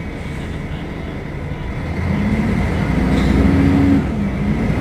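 Mercedes-Benz O500UDA articulated bus's diesel engine pulling away and accelerating. The engine note rises and grows louder, then dips briefly near the end as the gearbox shifts up, and starts climbing again.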